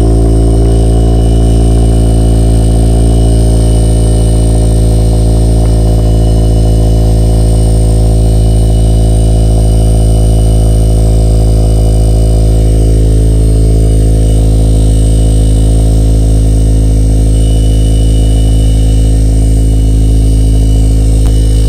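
Vehicle engine idling steadily, with a rattle from the exhaust resonator.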